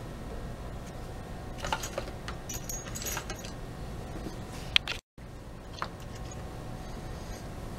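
Small metal hardware, the clamp screws and clips of a Carvey CNC bed, clinking and clicking as they are handled, in a cluster about two seconds in, with one sharp tick just before the five-second mark.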